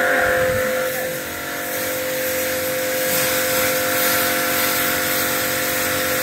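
APR electric pressure washer running, its motor giving a steady hum under the hiss of the high-pressure water jet washing sand and moss off a floor. The sound dips briefly about a second in, then the spray hiss grows stronger.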